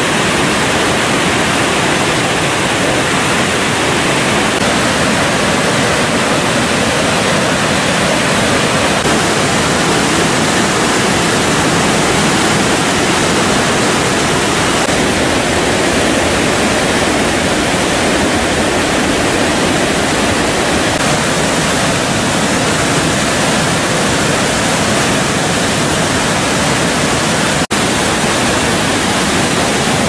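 Hogenakkal Falls on the Kaveri River in high, fast flow: loud, steady rushing of water pouring over the rocks. It breaks off for an instant near the end.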